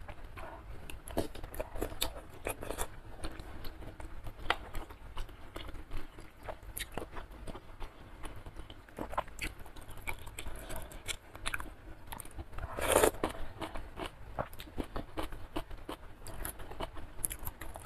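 Close-miked mouth sounds of someone eating spicy curry instant noodle soup with chewy beef skin: wet chewing with many small sharp clicks and smacks, and one louder slurp lasting about half a second about two-thirds of the way through.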